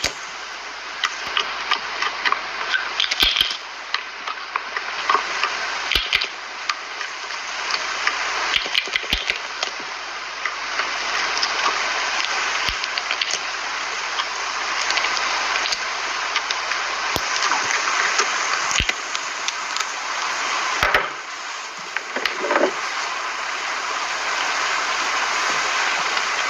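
Slime being squished and worked by hand: a dense run of wet crackling and popping, with scattered sharper clicks and a short break about three quarters of the way through.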